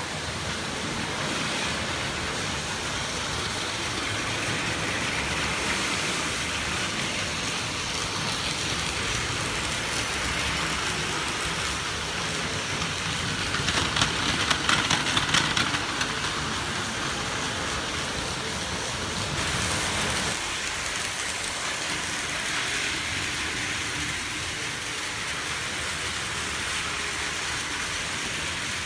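Battery-powered Plarail toy trains running on plastic track: a steady whir of small motors and gears with the rattle of plastic wheels. The loudest part comes about halfway through, as one train passes close by and clicks quickly over the track joints.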